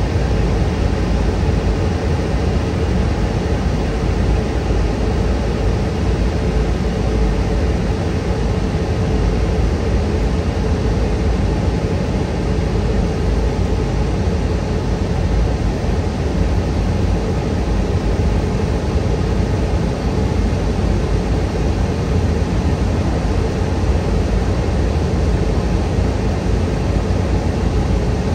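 Cabin noise inside a Boeing 717 airliner: a steady, unbroken rush of engine and airflow noise, heaviest in the low end, with a faint steady hum.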